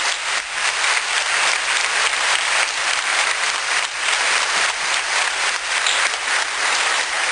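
Church congregation applauding: dense, steady clapping from a large crowd.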